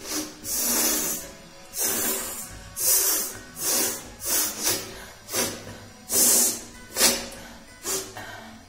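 A person blowing air hard through the nose in a dozen or so short, hissing bursts, irregularly spaced, a few of them longer.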